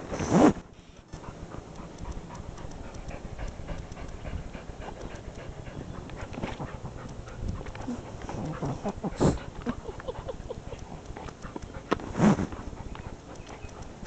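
Small dog panting close to the microphone, with rustling throughout. Three short, louder bursts stand out: one near the start, one about nine seconds in and one about twelve seconds in.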